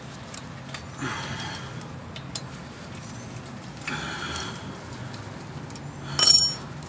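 Faint handling and scraping of tools and parts at a car's front wheel hub, with a few small clicks, then about six seconds in a short, loud metallic clink with a brief ring.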